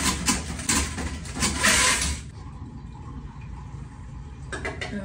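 Toilet auger being cranked and worked in a toilet drain, its cable scraping and rattling in a rapid, irregular run, while the retriever head has hold of the clog. The scraping stops about two seconds in, leaving only a few light clicks near the end.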